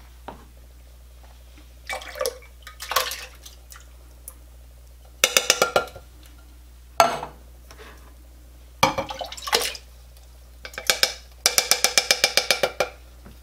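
Canned diced tomatoes glugging out of tipped metal cans into a crock pot. There are two runs of quick, even glugs, a short one midway and a longer one near the end, among clicks and knocks of the cans being handled.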